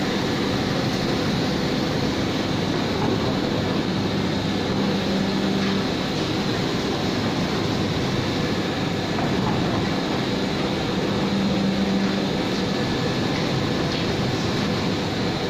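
Textile printing machinery running with a steady mechanical din, a thin high whine held throughout and a low hum that comes and goes every few seconds.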